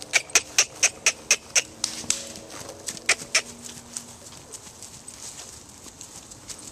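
A person clicking their tongue to urge on a loose trotting pony: a quick run of about seven sharp clicks at about four a second, then a few scattered clicks.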